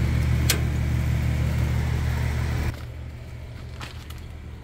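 A circuit breaker snapping on with a single sharp click about half a second in, over a loud, steady, low mechanical hum. A little before three seconds in the hum stops and quieter sound with a few faint taps follows.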